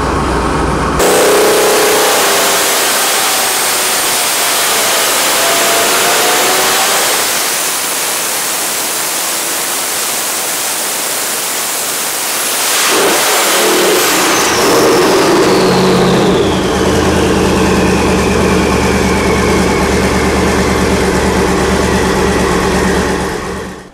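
Twin-turbo Ford 428 Windsor V8 on an engine dyno, making a loud full-throttle pull with a high turbo whistle over the exhaust. About halfway through it drops back, and the turbo whine winds down slowly while the engine settles to idle, then the sound stops abruptly just before the end.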